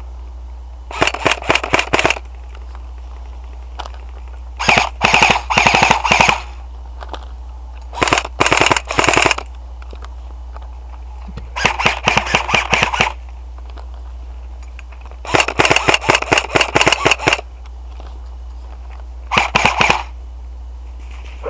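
Airsoft electric rifle firing full-auto bursts of rapid clicking shots: six bursts of one to two seconds each, a few seconds apart.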